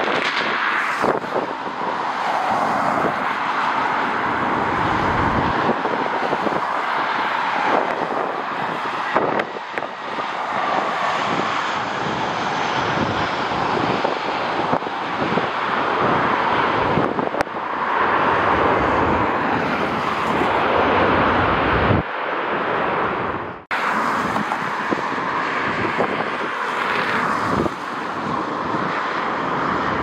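Jet airliner engine noise, swelling and easing, with gusting wind buffeting the microphone. The sound drops out sharply for a moment about three-quarters of the way through.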